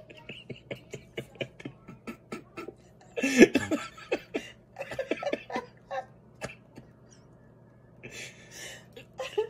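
A man's stifled, breathy laughter in quick short pulses, breaking into a louder laugh about three seconds in, then trailing off and returning briefly near the end.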